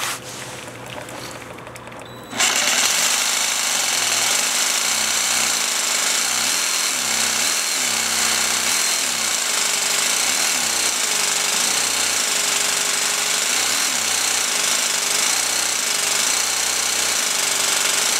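Jigsaw starting about two seconds in and then cutting through ceramic tile with a loud, steady rasping buzz. Its pitch rises and falls about once a second as the trigger is eased on and off, a way of feeding the blade through hard tile.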